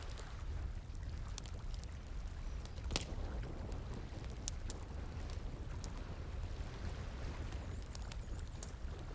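Wood fire crackling with scattered sharp pops, the loudest about three seconds in, over the steady rush of flowing stream water.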